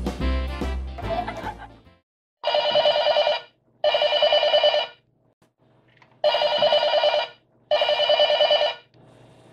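Background music fades out about two seconds in. Then a toy telephone gives an electronic ring in two pairs: two rings, a pause, and two more rings.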